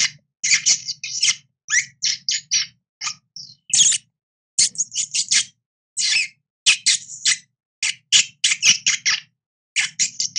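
Nutria (coypu) chewing a piece of bread or cracker held in its paws: an irregular run of short, sharp crunching bites in quick clusters, with brief silent gaps.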